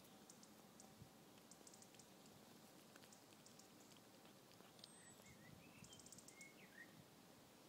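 Near silence: faint outdoor background with quick runs of faint clicks and a few faint short chirps in the second half.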